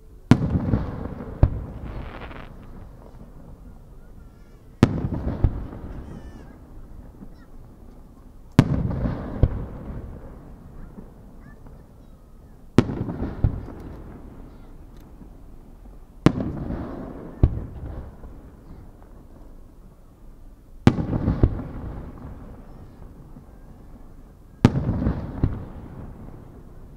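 Aerial firework shells bursting one at a time, about every four seconds: seven loud booms, each followed by a long rolling echo. After several of the booms a second, smaller crack follows about a second later.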